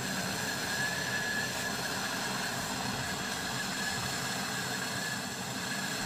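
Small gas torch (mini torch) burning steadily with a blue flame, a constant hiss, as it heats a washing-machine gearbox shaft to free a seized bushing.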